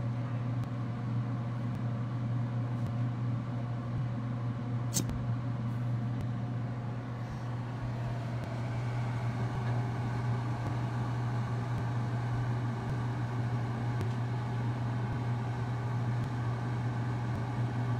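A steady low mechanical hum with a faint hiss over it, and a single sharp click about five seconds in.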